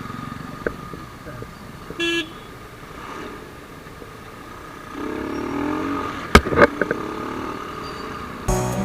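Road traffic heard from a moving motorcycle: a steady low engine and road rumble, a short vehicle horn toot about two seconds in, and a passing engine growing louder from about five seconds, with two sharp knocks a little after six seconds.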